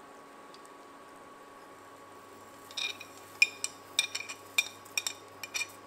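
Steel spoon clinking and scraping against a ceramic plate while whole spices are tipped into a pan, a quick run of sharp, ringing clinks starting about halfway through. Before that, only a faint steady hum.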